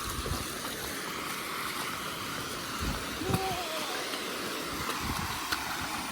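Steady hiss of rushing water from a creek with small waterfalls, with wind rumbling on the microphone now and then.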